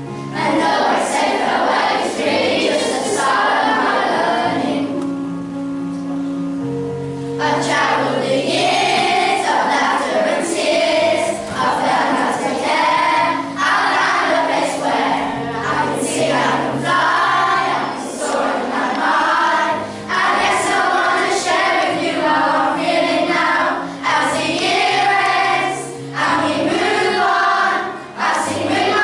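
A group of primary-school children singing together over an instrumental backing track. There is a short stretch of backing alone about five seconds in, then the singing comes back.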